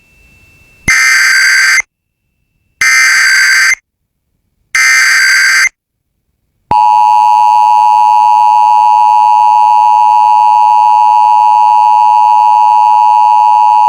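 Emergency Alert System activation tones. Three bursts of about a second each of the SAME digital header data come first. After a second of silence, about seven seconds in, the steady two-tone EAS attention signal (853 and 960 Hz) starts and holds.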